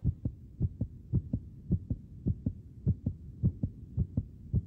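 Heartbeat sound effect: a steady lub-dub of paired low thumps, a little under two beats a second, laid in to build suspense.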